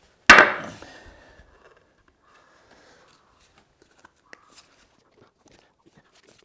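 A single sharp knock about a third of a second in that rings briefly and dies away, then faint scattered clicks and handling sounds from a plastic glue bottle being picked up and worked.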